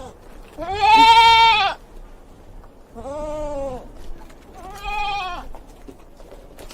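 Farm animal bleating: three drawn-out calls about a second apart, the first the loudest, each rising slightly and then falling in pitch.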